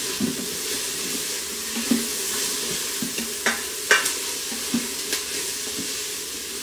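Onions frying in oil in a pan with a steady sizzle, stirred with a spoon that knocks and scrapes against the pan now and then. Two sharp clinks come about three and a half and four seconds in.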